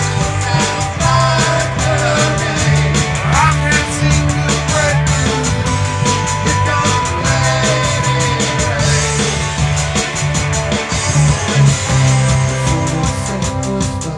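A rock band playing: guitars over a drum kit keeping a steady beat, with a short rising slide about three and a half seconds in.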